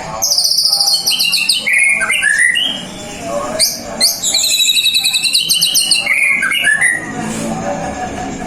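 White-rumped shama (murai batu) singing: two long phrases of rapid high trills, each stepping down in pitch, the second beginning about three and a half seconds in.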